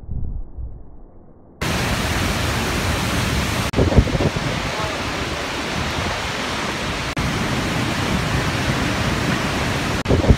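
Vernal Fall in Yosemite, heard close up in its spray: a loud, steady roaring rush of falling water across all pitches. It starts abruptly about one and a half seconds in, after a muffled low rumble, and breaks off for an instant a few times.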